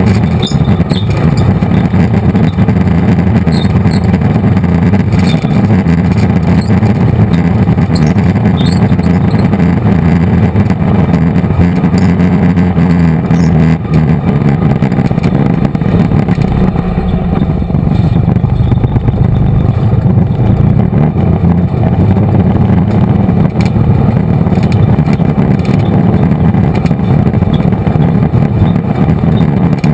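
An off-road vehicle's engine running steadily as it drives along a rough dirt trail, a loud low drone mixed with rumble from the ground.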